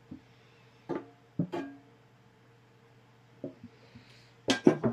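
Metal objects clinking and knocking on a metal work surface, several knocks leaving a short pitched ring, with a cluster of three sharp, loudest knocks near the end. A steady faint hum sits underneath.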